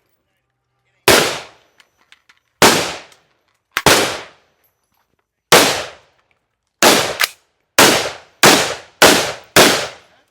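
Gunshots from a firearm at a shooting range, about ten single shots. They start a second or more apart and quicken to about two a second near the end, each followed by a brief echo.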